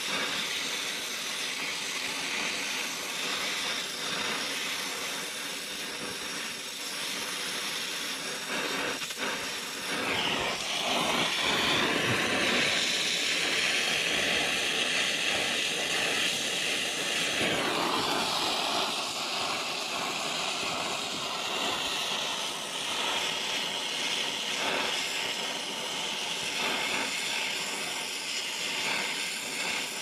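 Gas brazing torch hissing steadily, louder and harsher from about ten seconds in.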